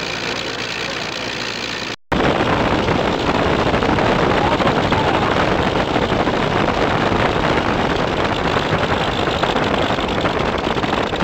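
80 hp Le Rhône rotary engine of a Fokker Dr.I triplane running steadily on the ground, heard from beside the cockpit just behind the propeller. The sound drops out briefly about two seconds in and comes back louder.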